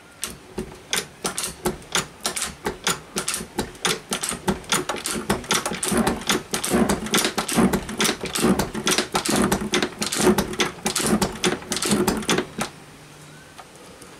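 Rapid dry metallic clicking and knocking from a metal shaper being worked, about three to four clicks a second, stopping about two seconds before the end.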